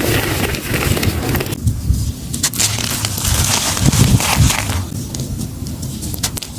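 Dry molded charcoal shapes crushed and crumbled in bare hands: dense gritty crackling and crunching as chunks break and powder pours through the fingers, over a low rumble, loudest about four seconds in.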